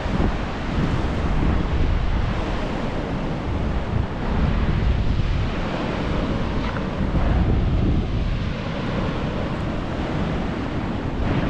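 Atlantic Ocean surf washing and breaking, with wind buffeting the microphone in uneven low gusts.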